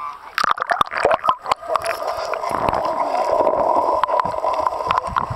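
River water splashing close to the microphone as a Pekin duck dunks at the surface, with a quick run of sharp splashes. From about two seconds in there is a steady, muffled gurgling rush of water with the camera under the surface.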